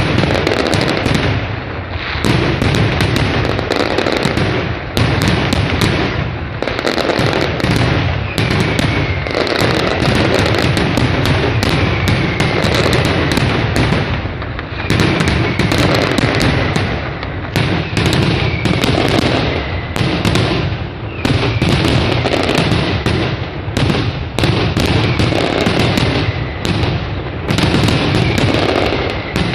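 Mascletà firework barrage: a dense, continuous run of loud firecracker bangs and shell bursts, with whistling shells heard again and again through the bangs from about a quarter of the way in.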